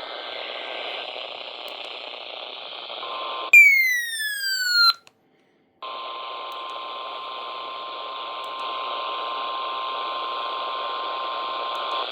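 Radio hiss from a weather-radio broadcast. About three and a half seconds in, a loud falling sweep cuts in and stops abruptly, followed by a second of dead silence. The hiss then returns with a steady single tone near 1 kHz, typical of the 1050 Hz NOAA Weather Radio alert tone.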